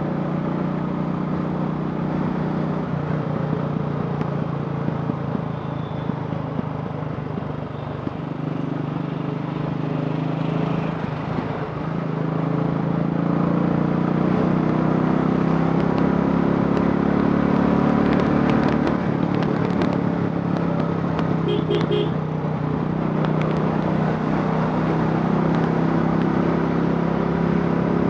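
Royal Enfield Classic 500's single-cylinder engine, converted from fuel injection to a carburettor, running steadily and getting louder about halfway through.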